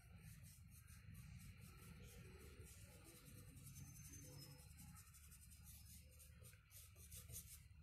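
Faint scratching of a paintbrush stroking paint onto a rough, unplaned wooden board, in many short strokes.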